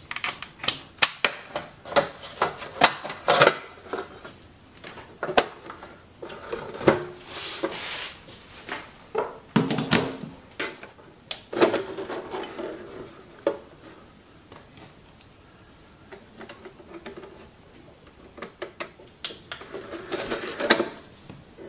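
Clicks, taps and knocks of an LG BD550 Blu-ray player being handled as it is put back together: its sheet-metal cover going back on and being fastened, a mains plug pushed into a socket, and near the end another cluster of clicks around its open disc tray.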